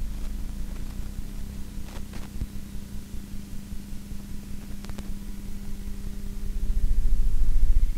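Wind rumbling on the microphone over a steady low hum, with a gust swelling loudest near the end.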